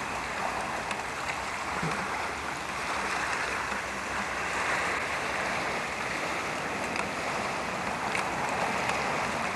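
Steady rushing of wind over a lake, with small wind-driven waves lapping against a rocky shore.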